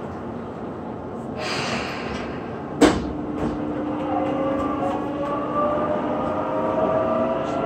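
Tobu 9050 series train pulling away on the Tokyo Metro Yurakucho Line. A short hiss comes about one and a half seconds in, then a sharp knock near three seconds, the loudest moment. After that the VVVF inverter motors whine, several tones rising slowly in pitch as the train accelerates over steady running noise.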